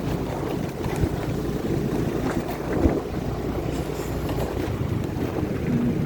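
Vehicle engine running on the move, with wind buffeting the microphone and a couple of light knocks, about one and three seconds in.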